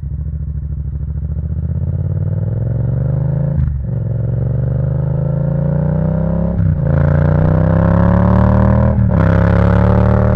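Yamaha MT-07 parallel-twin engine through an Akrapovic full exhaust system, accelerating hard. The engine note rises steadily and is cut briefly by three quick upshifts, the pitch dropping a little at each before climbing again.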